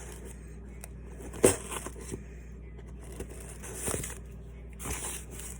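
A package being handled and opened by hand: rustling and crinkling, with a sharp click about one and a half seconds in and further rustles near the end.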